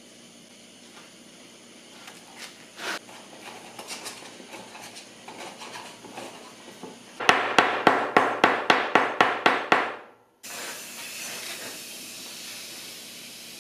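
Core sand being packed by hand into a wooden core box with soft gritty crunches, then a quick run of about a dozen sharp knocks, about four a second. After a brief dropout, gas hisses steadily through a clear plastic tube pushed into the sand core.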